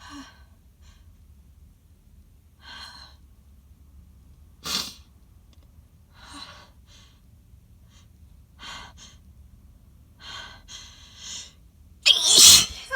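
A woman's sneeze build-up: short gasping breaths every second or two, a sharp brief burst about five seconds in, then one loud sneeze near the end.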